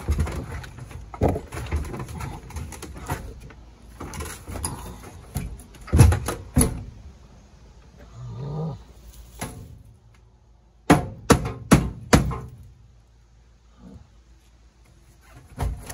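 Clanks and knocks of a steel seat frame being wrenched loose and pulled out of the cab floor of a 1979 Kenworth K100 cabover, its rusty bolts ground off. There are two loud bangs about six seconds in and a quick run of four sharp knocks about three quarters of the way through.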